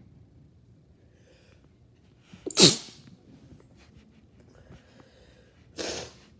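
Two sneezes: a loud, sharp one about two and a half seconds in, with a short build-up just before it, and a weaker one near the end.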